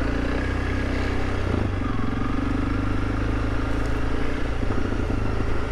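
Honda CRF300 Rally's single-cylinder engine running steadily under way on a dirt track, with a brief dip about one and a half seconds in.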